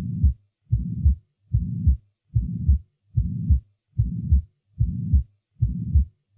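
Heart sounds heard through a stethoscope: a regular beat of about 75 a minute, each beat a sharp heart sound, then a low-pitched murmur running on, then a second sharp heart sound, with a short silent gap before the next beat.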